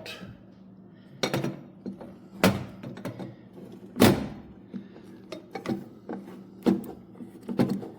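Scattered sharp knocks and clacks of hand tools and metal parts being worked, about five of them, the loudest about four seconds in, while a bearing is taken out of a metal block.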